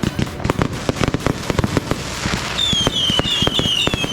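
Fireworks display: a rapid, dense crackle of bangs throughout, joined about two and a half seconds in by a string of short, falling whistles.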